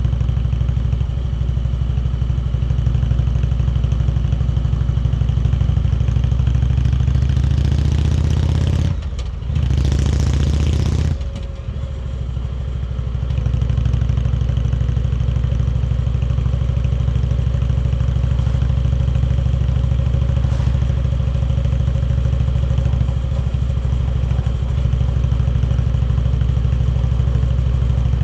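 Indian Chieftain Dark Horse's V-twin engine running steadily on the road. About nine seconds in the engine note briefly drops away under a rush of wind noise, then picks back up to steady running a few seconds later.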